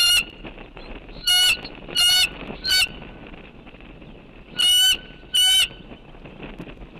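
Six loud, short bird calls close to the microphone: one at the start, three in quick succession about a second in, and two more near the middle. A steady background hiss runs underneath.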